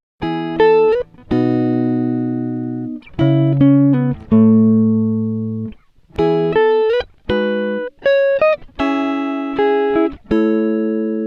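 Background music: a clean plucked guitar plays chords and short melodic phrases, each note ringing out and fading, with brief pauses between phrases.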